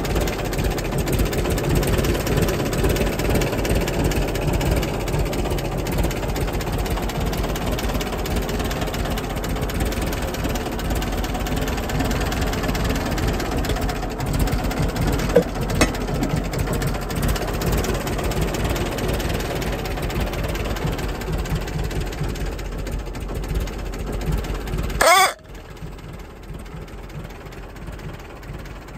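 David Brown RAF aircraft tug's petrol engine idling steadily, with a couple of sharp metal clicks about halfway through. About 25 seconds in, a short rising sound, then the engine sound drops away abruptly.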